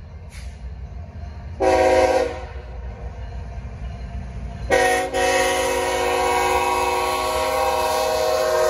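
Air horn of a GE ES44C4 freight locomotive sounding for a grade crossing: a short blast about two seconds in, then a long blast from about five seconds in, over the low rumble of the approaching train. This is the short-then-long end of the standard crossing signal.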